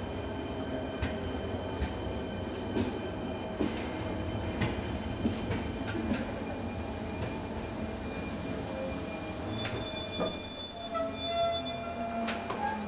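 ČD class 471 CityElefant electric multiple unit rolling slowly into the platform and braking to a stop: a low running rumble with scattered clicks from the wheels, then a thin high squeal that starts about five seconds in, creeps up in pitch, is loudest just before the stop and cuts off about twelve seconds in.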